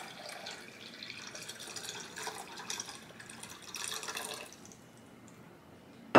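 Tap water poured from a glass jug into the top reservoir of a Santevia Mina alkaline filter pitcher, splashing and trickling unevenly; the pour stops about four and a half seconds in.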